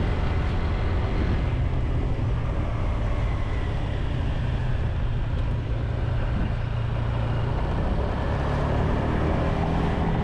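Engine running steadily at an even pitch, with wind noise on the microphone; it cuts off abruptly at the very end.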